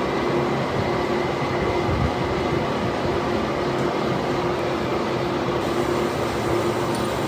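Manual lathe running: a steady mechanical hum with a faint constant tone and no breaks.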